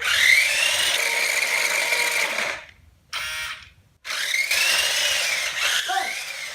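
Small electric drive motor of a Mario Kart 8 remote-control toy car whining as it drives. The whine rises in pitch and holds, cuts out about two and a half seconds in, gives a short burst just after three seconds, then runs again from about four seconds with its pitch rising and falling.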